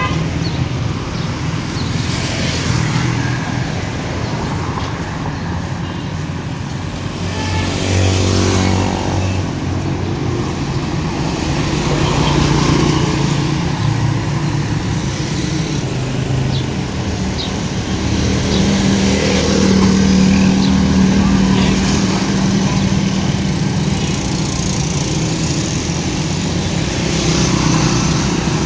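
Street traffic: cars and motorcycles running along the road close by, a steady engine hum with vehicles passing louder about eight seconds in and again around twenty seconds in.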